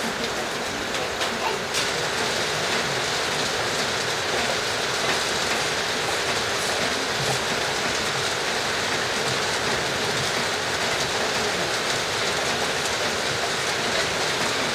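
A steady, dense hiss with no rhythm or pitch, with a few sharp clicks in the first couple of seconds.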